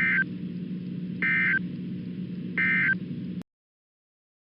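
Emergency Alert System end-of-message data bursts: three short bursts of two-tone digital data buzz, about 1.3 seconds apart, over a steady low hum. They mark the end of the alert. The audio then cuts off to silence about three and a half seconds in.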